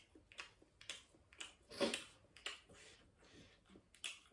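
Faint eating sounds: chewing and mouth smacks as naan is eaten, in short scattered clicks, the loudest a little under two seconds in.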